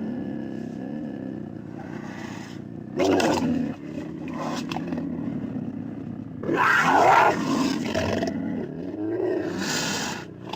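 Puma (cougar) growling steadily, breaking into two louder roars, a short one about three seconds in and a longer, louder one about seven seconds in.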